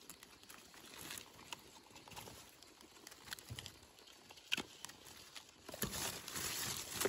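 A knife cutting a wild mushroom's stem free at the soil, with gloved hands disturbing dry leaf litter: scattered small clicks and crackles, and louder rustling near the end.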